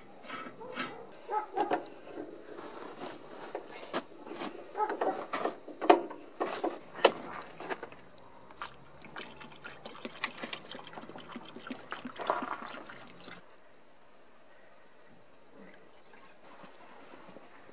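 Liquid poured from a plastic jerrycan into a vehicle's filler neck, glugging and splashing unevenly, with sharp knocks and clicks as the can is handled. After about 13 seconds the sound drops to a faint, quieter trickle through a funnel.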